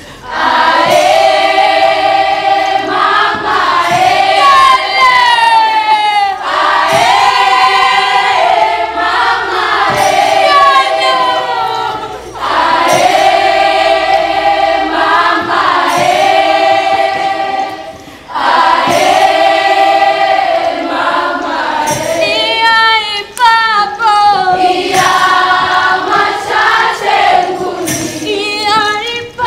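A group of voices singing a traditional Pokot song in chorus, in phrases of about six seconds with short breaks between, some lines sliding down in pitch.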